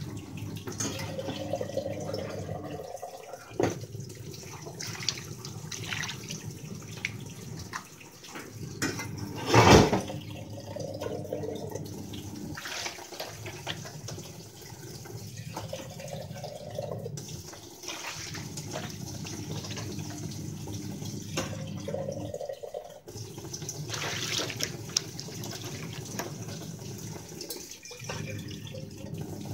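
Water poured from a steel pot splashing over a stone kitchen counter as it is rinsed and wiped by hand, over a steady sound of running water, with scattered small knocks and splashes. There is one much louder brief burst about ten seconds in.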